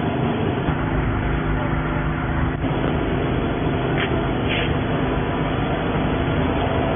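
A steady engine hum with a constant pitch, over street background noise, with a couple of faint short clicks about two thirds of the way through.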